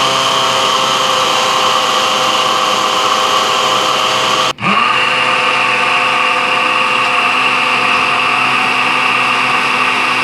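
Immersion (stick) blender running at the bottom of a mug of milk and sunflower oil, emulsifying it into mayonnaise: a steady motor whine. About four and a half seconds in the motor cuts out for an instant and spins straight back up.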